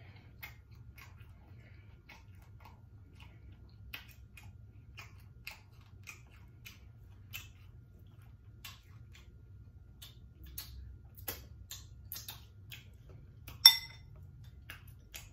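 Soft, scattered clicks of chewing and mouth smacking while eating, over a low steady hum. Near the end comes one sharp clink with a brief ring, a metal utensil striking a dish.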